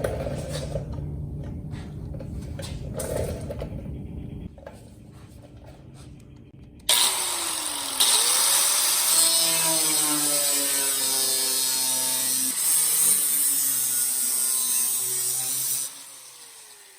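A power cutting tool cutting the rusty cowl sheet metal of a Model A Ford. It starts suddenly about seven seconds in and runs loud with a strong hiss for about nine seconds, its pitch wavering under load, then cuts off and winds down with a falling tone.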